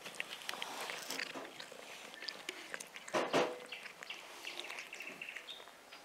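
A cat chewing food close up, with a run of small wet clicks and crackles, while birds chirp in the background. About three seconds in there is one short, louder sound.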